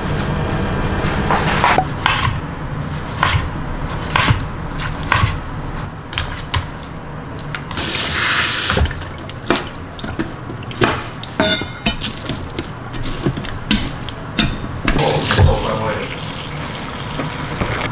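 Kitchen tap running into a stainless steel sink as green onions are rinsed under the spray, with repeated knocks and clatters of a wooden cutting board and bowls against the sink. The water rush is loudest about eight seconds in.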